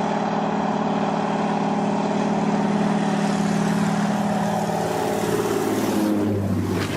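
An engine running with a steady hum and a wide rushing noise; its pitch sinks about four seconds in, and a different, lower hum takes over near the end.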